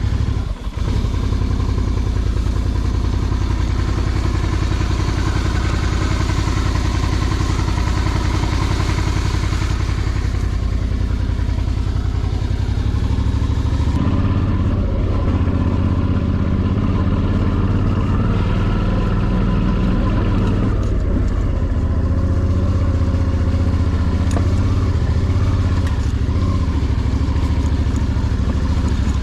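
Suzuki DL650 V-Strom's V-twin engine running steadily as the motorcycle is ridden, with a high rushing hiss over it that drops away sharply about halfway through.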